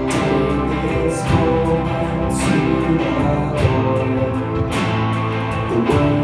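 Live gospel band playing with guitar to the fore over a steady beat, before the vocal comes in.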